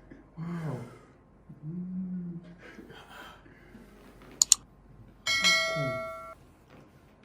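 A man's low wordless groan and a hum, then two sharp clicks in quick succession about four and a half seconds in. A bell-like ding follows, with a voice under it, and cuts off abruptly after about a second.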